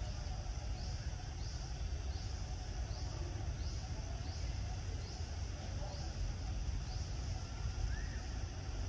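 An insect chirping in a regular rhythm, one short rising chirp about every two-thirds of a second, stopping about seven seconds in, over a steady low rumble.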